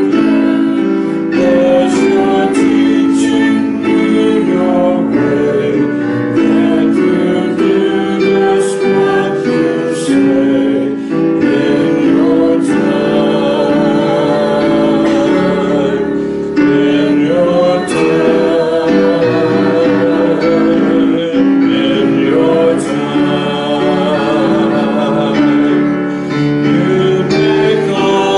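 A woman singing into a microphone, holding notes with vibrato, accompanied by chords on an electronic keyboard.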